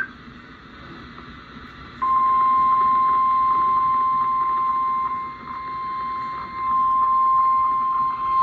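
NOAA Weather Radio 1050 Hz warning alarm tone: one steady high beep that starts about two seconds in after a short stretch of faint radio hiss, and sags in loudness for a second or so in the middle. It is the alert signal that a warning message is about to be broadcast.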